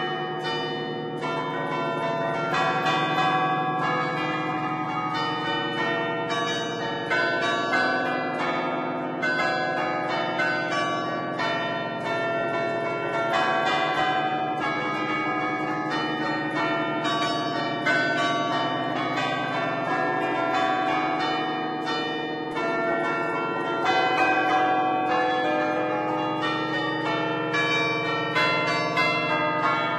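A ten-bell concerto tuned in A, cast by Barigozzi in 1950, played by hand from a baton keyboard (tastiera) as a festive 'allegrezza' peal. The bells are struck in quick succession into a running melody, each stroke ringing on under the next.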